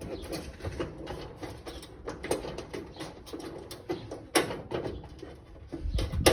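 Small parts and hood-hinge hardware being handled: an irregular run of light clicks, taps and rustling, with a sharper click about four and a half seconds in and another near the end.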